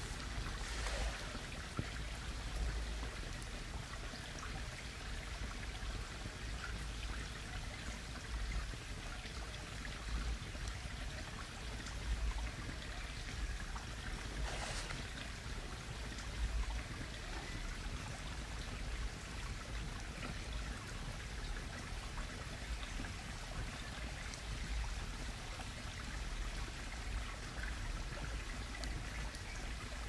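Steady rushing of running water, with a low rumble underneath and a couple of faint clicks, one about a second in and one about halfway through.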